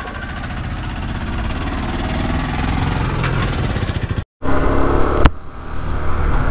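Motorcycle engine running as the bike moves off and rides along, getting a little louder. It cuts out to silence for a moment about four seconds in, then returns with engine and wind noise, and one sharp click a second later.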